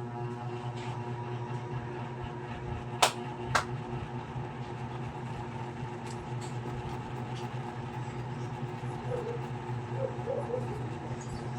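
Ceiling fan running with a steady electric motor hum. Two sharp clicks about three seconds in, half a second apart.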